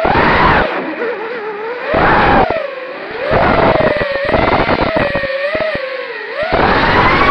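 Brushless motors and props of a 210-size FPV racing quadcopter whining, the pitch rising and falling with the throttle, with several surges of rushing prop and wind noise on hard throttle punches.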